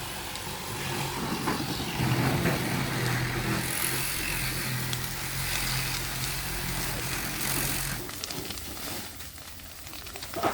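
An engine running steadily, likely the machine working the debris pile, dropping away about eight seconds in.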